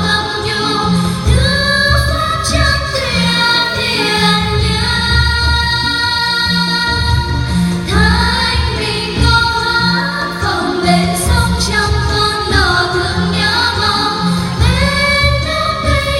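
A song with a female voice singing a gliding melody over music with a steady beat.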